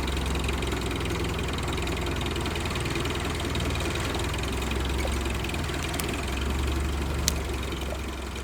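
All-terrain vehicle's engine running steadily with a low drone, with a couple of faint ticks late on.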